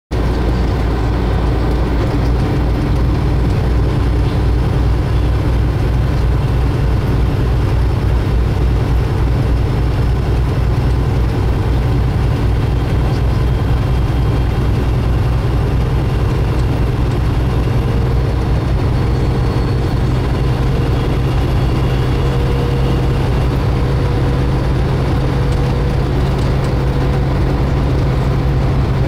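Steady engine drone and road noise inside a truck cab cruising at highway speed, a constant low hum with no change in revs.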